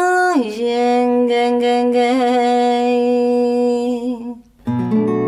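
A woman's voice holding one long sung sigh: it slides down in pitch in the first half-second, then holds a low steady note with a slight wavering for about four seconds. Near the end the voice breaks off and a chord is struck on a nylon-string classical guitar and left ringing.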